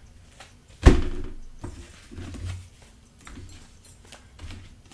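A single sharp thump about a second in, then quieter tapping and rustling handling noises on a tabletop.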